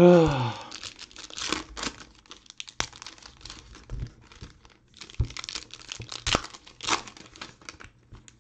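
Foil trading-card pack wrappers crinkling and rustling while cards are sorted and set down, with many short rustles and taps. At the very start, a short sound falling in pitch is the loudest moment.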